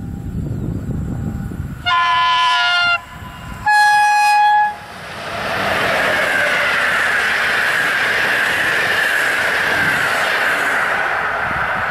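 Passenger train's locomotive sounds its horn twice: a short chord of several tones, then after a brief gap a single lower tone. The train then passes close by, a steady loud rush of wheels on rails that eases slightly near the end.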